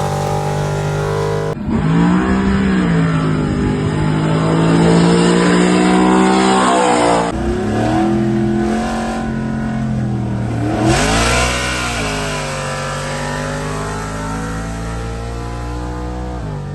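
Performance car engines accelerating hard at full throttle, their pitch climbing and then holding high, in several short takes that cut off abruptly.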